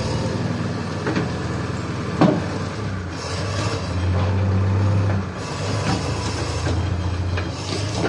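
JCB backhoe loader's diesel engine running steadily as the machine works, swelling louder for a moment about four seconds in. A single sharp knock comes about two seconds in.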